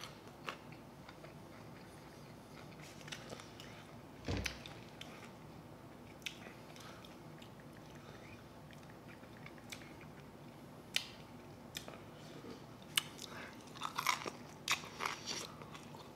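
Soft close-miked eating sounds of bone-in chicken wings: scattered wet mouth clicks and smacks from chewing, with a dull thump about four seconds in. Near the end a quick run of smacks and clicks as a wing is bitten into.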